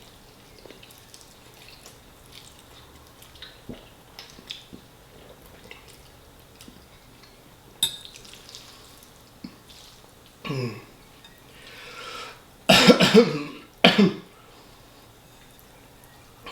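A man coughing: a short cough about ten seconds in, then two loud coughs near the end, the loudest sounds here. Faint clicks and taps come earlier, with one sharper click about eight seconds in.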